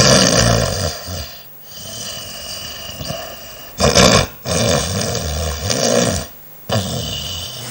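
A young woman snoring heavily in her sleep (rhonchopathy), heard from a night-time recording. It comes as several loud snores in a row, each a second or two long, with short quieter gaps for breath between them.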